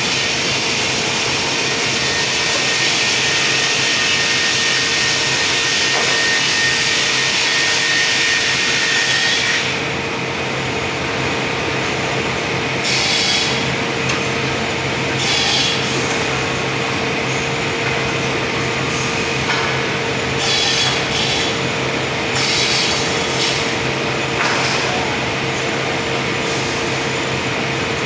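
Sawmill machinery running with a steady hum while a saw cuts albasia wood: one long continuous cut for about the first ten seconds, then shorter cuts every second or two.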